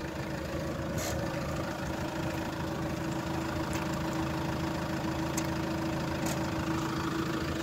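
Car engine idling steadily, a constant low hum with a steady drone above it and a few faint clicks.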